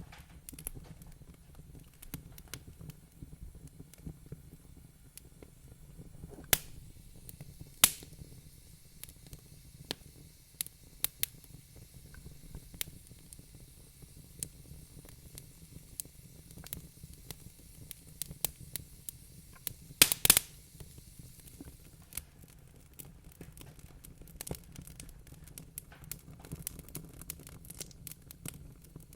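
Wood fire crackling in a fireplace: scattered small snaps and pops over a low steady rumble, with a few louder pops, the loudest a quick cluster about twenty seconds in.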